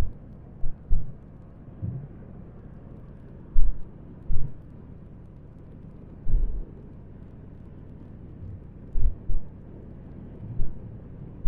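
Wind buffeting on an action camera's microphone while riding a motorcycle: a steady low rumble broken by about ten irregular, short, heavy low thumps as gusts hit the mic.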